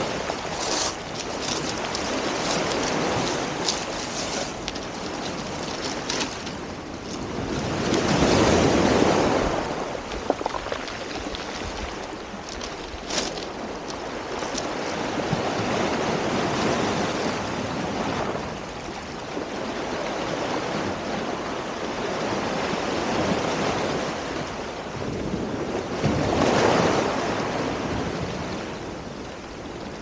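Ocean surf washing up a beach: a steady rush of breaking water, with larger waves swelling and crashing about nine seconds in and again near the end, and some wind on the microphone.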